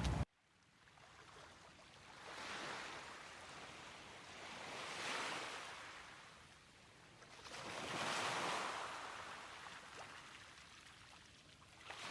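Waves breaking and washing up a beach, each swell rising and fading every few seconds, the loudest about eight seconds in.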